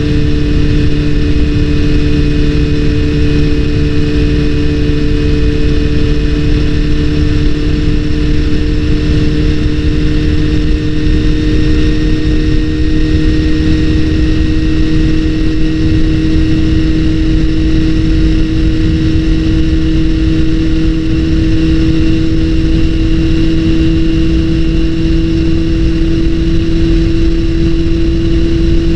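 Honda CBR400RR motorcycle's inline-four engine running at steady revs, its pitch creeping up slightly across the stretch.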